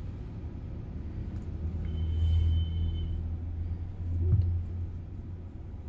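A low steady rumble that swells twice, with a brief high-pitched beep about two seconds in.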